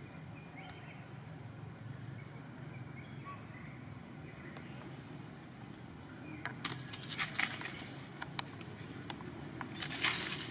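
Quiet forest background with faint insect and bird tones, then from about six seconds in a run of sharp clicks and scrapes close to the microphone, growing into loud rustling and handling noise near the end as the camera is moved over the leaf-littered ground.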